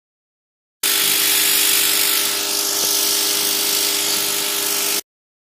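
Pressure washer running and spraying: a loud hiss of the water jet over a steady hum, starting suddenly and cutting off suddenly about four seconds later.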